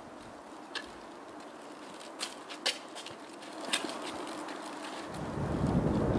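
Faint steady background hiss broken by a few short sharp clicks, then a deep rumble swelling up over the last second or so.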